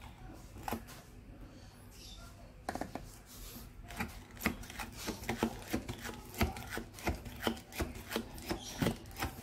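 Staresso Mirage manual lever espresso maker being worked: scattered clicks at first, then from about four seconds in a run of sharp clicks and knocks, about two a second.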